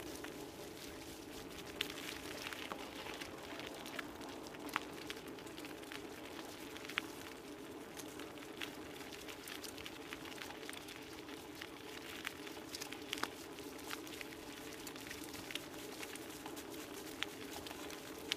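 Dog scooter rolling fast over a dirt trail covered in fallen leaves: a steady rolling noise from the tyres, with scattered sharp ticks and clicks from the rig and the ground.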